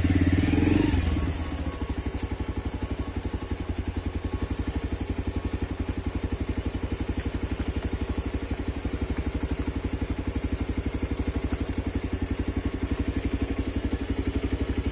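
Engine running steadily with an even, rapid beat. It is louder for about the first second and a half, then settles to a constant level.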